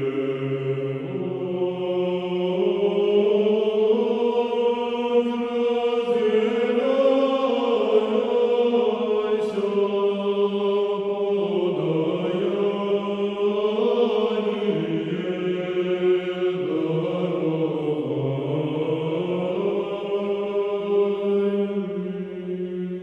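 A choir singing slow, sustained chant in several voices, its held chords shifting in pitch every few seconds.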